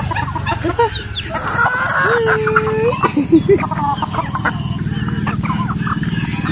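Native chickens clucking and chirping around feed, many short calls overlapping, with one long held call about two seconds in.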